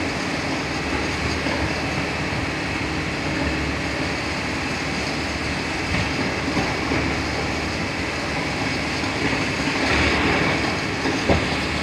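Steady running noise of a moving train heard from on board, with a single sharp knock near the end.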